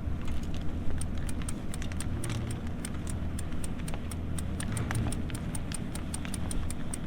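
Hand crank of a high tunnel's roll-up side curtain being turned, clicking about four times a second over a steady low hum.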